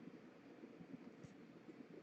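Near silence: faint room tone, with one faint tick about a second in.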